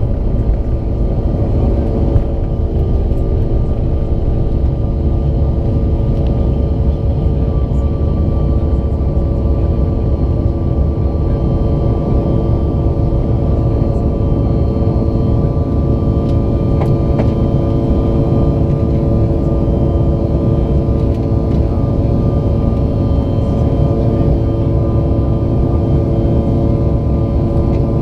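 Steady cabin noise inside a Bombardier CRJ-900 in flight: the rush of air and the even hum of its rear-mounted General Electric CF34 turbofans, with a few steady tones held throughout and a higher tone growing a little stronger several seconds in.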